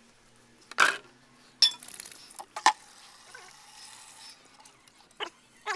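A few short, sharp knocks and clinks at irregular intervals, from hard objects being handled and set down.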